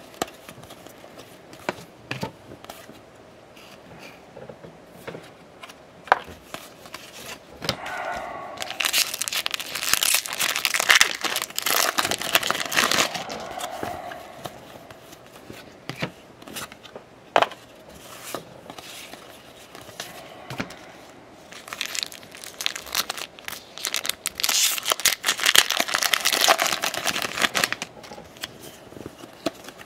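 Baseball trading cards handled and flipped through by hand, with scattered sharp flicks of card stock. Two longer spells of crinkling and tearing, starting about nine and about twenty-two seconds in, fit foil pack wrappers being opened.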